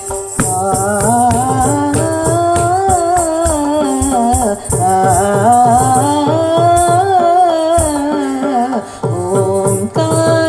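Indian devotional song: a voice holding long, ornamented melodic lines that bend up and down in pitch, over regular drum strokes.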